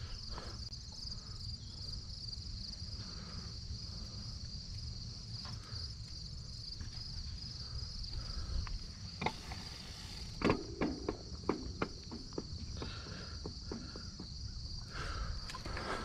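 Steady high-pitched chorus of crickets and other insects, over a low rumble, with a scatter of clicks and knocks about ten seconds in.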